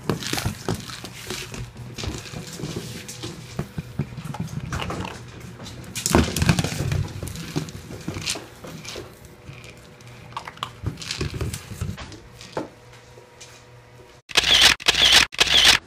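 Pumi dogs growling as they play with a rubber Kong toy, with scattered knocks and clicks of the toy and paws on a tile floor. A run of much louder harsh bursts comes near the end.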